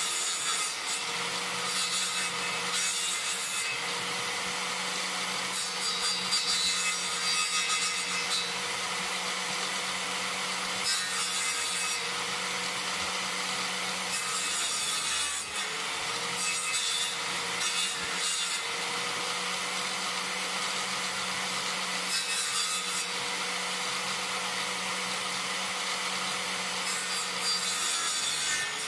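Corded electric circular saw, mounted under a bench as a table saw, running steadily while a birch log is fed across the blade to trim its side flat. Over the motor's steady hum the cut rasps louder in stretches every few seconds as the log is pushed along, and the motor briefly drops under load about halfway through.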